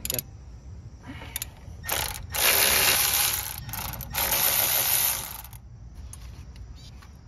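Half-inch drive ratchet clicking as it turns a 14 mm brake caliper bolt out: a few single clicks, then two runs of rapid clicking of about a second and a half each.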